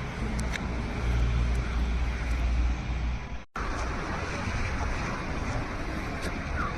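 Steady outdoor noise like road traffic, with a low rumble for the first few seconds; the sound drops out for an instant about halfway through, then the same noise carries on.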